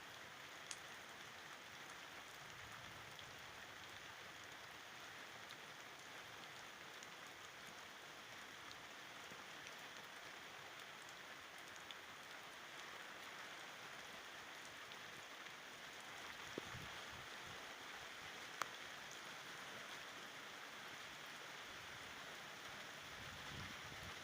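Steady rain falling during a thunderstorm, an even hiss with a few sharp taps of single drops, the loudest about three-quarters of the way through.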